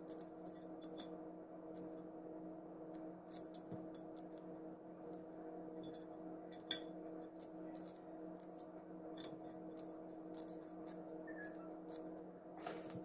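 Soft, irregular snaps and ticks of malunggay (moringa) leaves and thin stems being picked off by hand, with one sharper click about halfway through. A steady low hum runs underneath.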